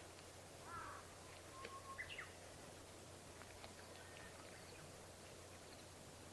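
Faint, short bird calls: a few chirps and call notes about one to two seconds in, over a low steady hiss.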